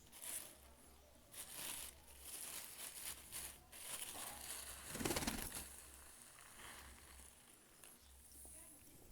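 Pigeons feeding: irregular pecking and rustling at the feed, with a louder, fuller flurry about five seconds in.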